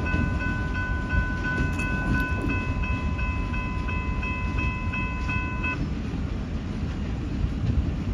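Railroad grade crossing bell ringing in a quick even rhythm, about three strikes a second, and stopping about six seconds in as the crossing clears. Underneath is the low rumble of the freight train, its trailing GP38-2 diesel locomotive moving away.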